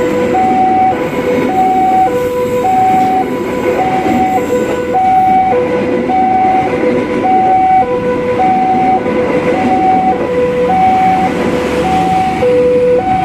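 Railway level-crossing warning signal sounding a two-tone alternating high–low chime, each tone about two-thirds of a second long, over the steady rumble of a passing train.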